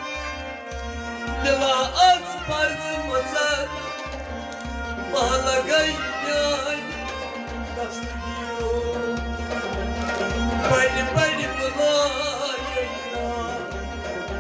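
Harmonium accompanying a Kashmiri Sufi song over a steady hand-drum beat, with a man's voice singing phrases in places.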